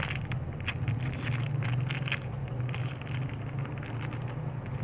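Handling noise: a scatter of light clicks and rustles in the first couple of seconds, over a steady low hum.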